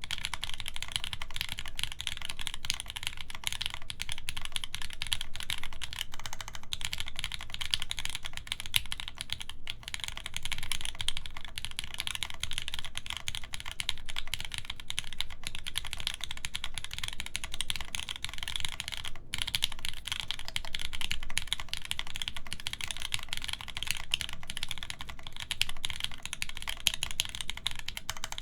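Continuous fast typing on a mechanical keyboard with lubed linear Gateron Yellow switches in milky housings, FR4 plate and GMK keycaps: a dense stream of soft keystroke clacks, with brief pauses about ten and nineteen seconds in.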